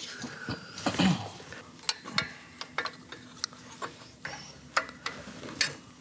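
Small metallic clicks and clinks, about ten of them at irregular spacing, as valve springs are squeezed and keepers worked back onto the valves of a 1947 Harley-Davidson cylinder head.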